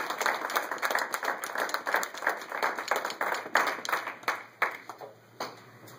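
Audience applauding, thinning out to a few scattered claps about five seconds in.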